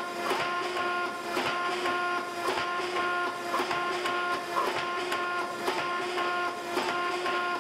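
A forging machine's dies striking a hot steel bar in even strokes about once a second, over a steady machine hum, pressing a texture into the metal.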